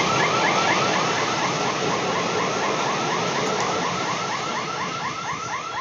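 Passenger coaches rolling past at about 68 km/h, a steady rush of wheels on rail that fades as the train goes by. Over it, an electronic level-crossing warning alarm warbles rapidly, about five short falling tones a second.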